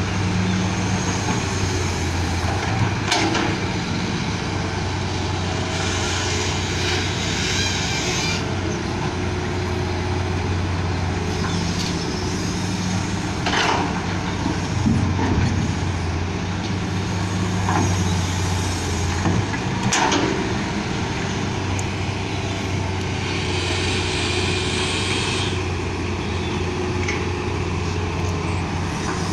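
Steady diesel drone of an excavator at work beside an idling dump truck. Several sharp bangs and rushes of soil and rock come as buckets are dumped into the truck's steel tipper bed.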